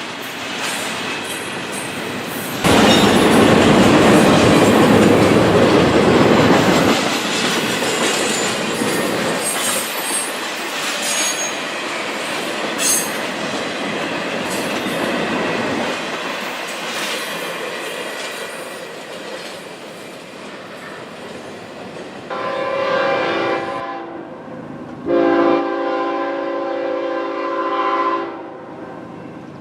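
Freight train rolling past, its wheels clacking over the rail joints, with a loud rushing surge a few seconds in. Near the end a locomotive horn sounds a chord twice, a short blast then a longer one.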